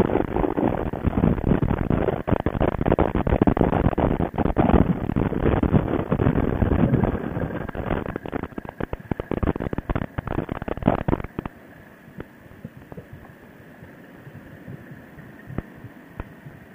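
Wind buffeting the microphone of a motorcycle riding at speed, with the motorcycle running beneath it as a gusty, crackling rush. About eleven seconds in it drops suddenly to a much quieter hiss with a faint steady whine.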